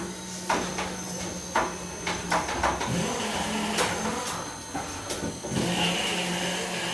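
Workshop machinery: a steady electric-motor hum with irregular knocks and clicks of work on metal, and a hiss that comes and goes.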